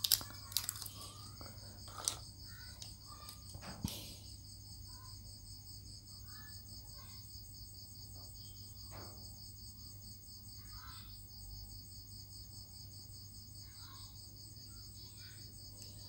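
Light clicks and taps of hands handling wires and a cordless soldering iron, a few sharper ones in the first four seconds and fainter ones after, while a DC jack's leads are soldered. A steady high trill and a low hum run underneath.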